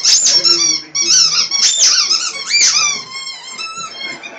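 A dog's squeaky toy squeaking over and over as the dog chews it, each squeak a high, wavering note; the squeaks turn fainter after about three seconds.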